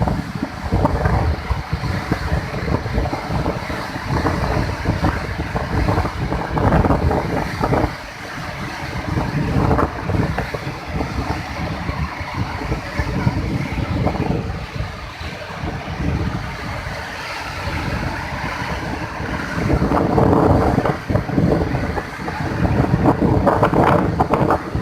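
Wind buffeting the microphone in irregular gusts over the rush of swollen floodwater, with a faint steady hum underneath.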